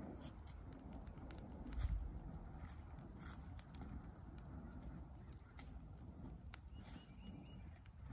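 Faint, scattered crackling and ticking from small flames creeping through dry leaf litter, set by a drip torch for a test burn, over a low rumble of wind on the microphone.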